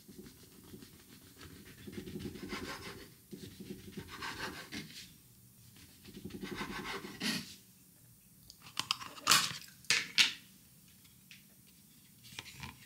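A knife sawing through the crusts of soft white sandwich bread on a wooden cutting board: three runs of rasping strokes, then a few sharp clicks and knocks a little past the middle.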